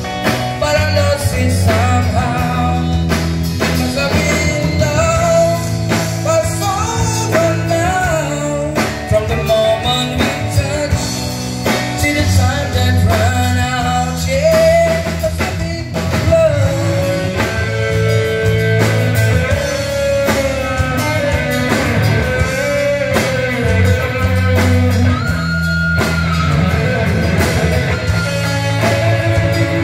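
Live rock band playing a song: a male singer over electric and acoustic guitars, bass guitar and drums, through a PA.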